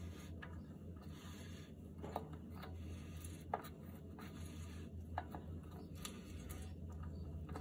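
Faint rubbing with a few small clicks as a 2015 Toyota RAV4's oil filter housing cap is hand-tightened, with a steady low hum underneath.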